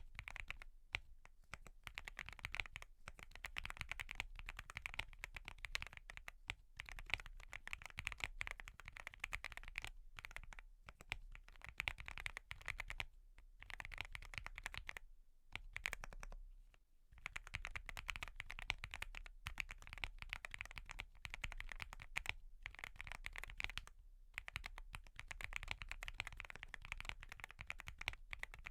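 Typing on a Wobkey Crush80 mechanical keyboard with Gateron Milky Yellow Pro linear switches and a full foam build: fast, continuous keystrokes, with brief pauses, the longest about fifteen seconds in.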